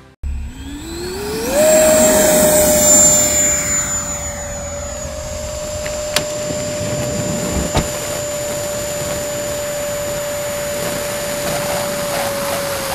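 Electric ducted fan of a model jet spooling up, its whine rising in pitch for about a second and a half, then running at a steady high whine with a thin whistle above it. Two short clicks come near the middle.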